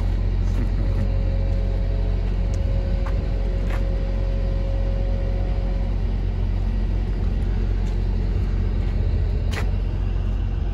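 Idling diesel engine, a steady low rumble, with a thin tone for the first few seconds and a few light clicks, one near the end.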